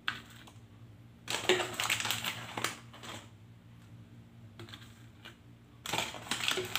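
A plastic bottle and its cap handled against a bowl and counter: a click, then two bursts of quick rattling taps, around two seconds in and again near the end.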